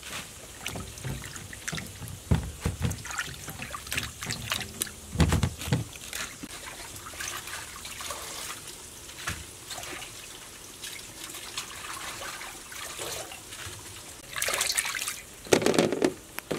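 Water splashing and dripping as leafy greens are washed by hand in a steel bowl of water and lifted out into a plastic basket, with irregular small splashes and a few soft thumps. A louder burst of splashing comes near the end.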